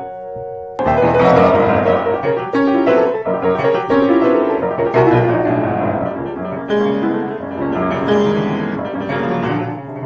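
Solo grand piano playing classical music: a held chord fades, then about a second in a loud, fast, dense passage breaks in and runs on.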